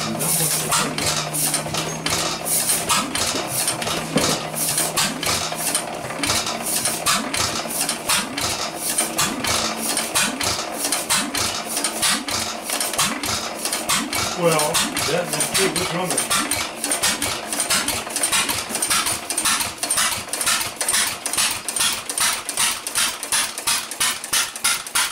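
1913 Stickney 1 3/4 HP hit-and-miss gas engine running with its flywheels spinning, giving off a rapid, even metallic clatter.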